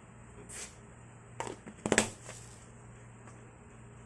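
Seasoning container tapped and shaken as chicken powder is sprinkled into a wok: a few short clicks and rattles bunched about halfway through, the loudest near the middle, over a steady low hum.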